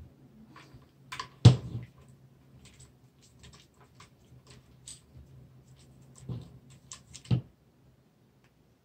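Light clicks and taps of a tool and metal parts as the action screws of a Browning AB3 rifle are tightened back into the stock, with a sharper knock about a second and a half in and another about seven seconds in. A faint steady low hum runs underneath.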